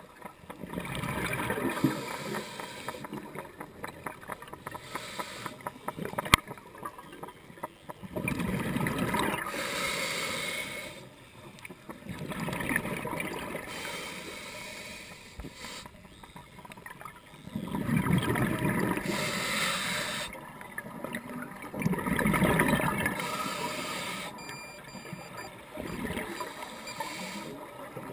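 Scuba diver breathing through a regulator underwater: bubbling rushes of exhaled air come about every four to five seconds, with quieter stretches between breaths.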